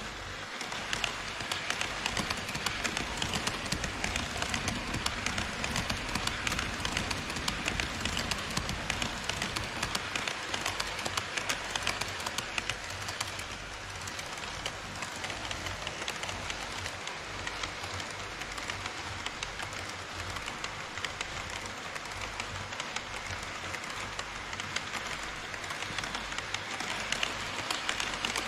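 HO scale model trains rolling over KATO Unitrack and across a truss bridge: an EH500 locomotive with container wagons, then an E5 series Shinkansen passing close by. A steady rolling clatter of small metal wheels with a dense run of rapid clicks at the rail joints, starting about half a second in and easing a little midway.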